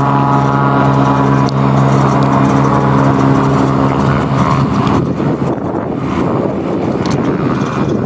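Single-engine floatplane at full power on its takeoff run, its engine and propeller droning at a steady pitch for about four seconds, then breaking up into a rougher rushing sound as the plane pulls away.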